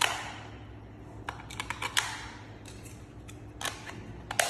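Small plastic clicks and taps as batteries are fitted into a drone remote control's battery compartment: a scattering of irregular sharp clicks, the loudest near the end.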